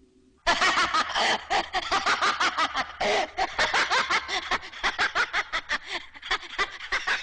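Rapid cackling laughter, starting suddenly about half a second in and running on without a break, at about five or six pulses a second.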